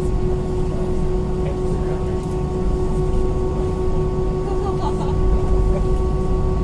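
Cabin noise inside an Airbus A320-232 taxiing, its IAE V2500 engines at idle: a steady hum of several held tones over a low rumble.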